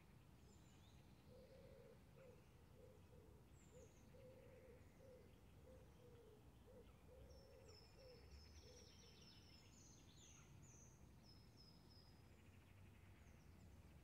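Faint morning ambience of an empty park: a low steady rumble with distant birds chirping. A quick run of short high notes comes about midway, and through the first half a low call repeats about twice a second.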